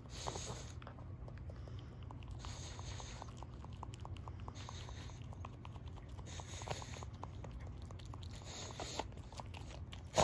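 Shih Tzu nibbling at the fur of its leg, with many small rapid clicks of the teeth, and a short hissing breath through the nose about every two seconds.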